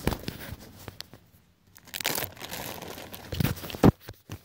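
Plastic bag crinkling as it is handled, with scattered knocks and rubs of hands against the camera, the loudest a sharp bump near the end.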